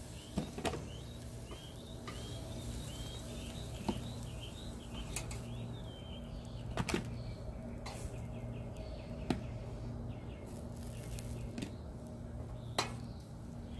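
Metal grill tongs clicking against the wire grate of a small kettle charcoal grill every second or two as chicken pieces are lifted off. A steady low hum runs underneath, and birds chirp faintly during the first half.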